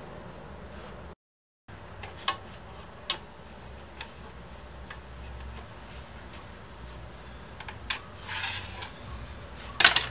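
Workshop handling sounds as braces are clamped onto an acoustic guitar top: scattered sharp clicks and knocks of wood and clamps, a scraping rustle, and a loud double click near the end, over a low steady hum. The sound drops out completely for about half a second near the start.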